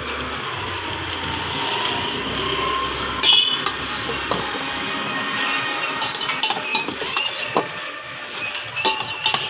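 Metal spoon clinking against a stainless-steel bowl in scattered sharp strikes, the loudest and most ringing about three seconds in, over a steady background hiss.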